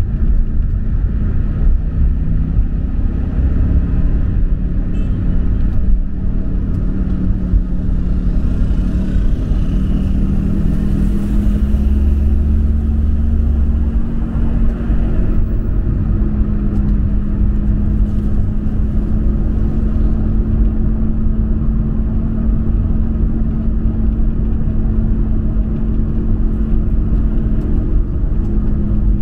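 Motor vehicle running: a steady low rumble with an engine hum that shifts a little in pitch.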